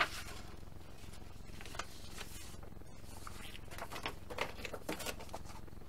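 Paper instruction sheets rustling and crinkling as they are slid across a cutting mat, picked up and handled, in scattered short bursts that grow busier in the second half.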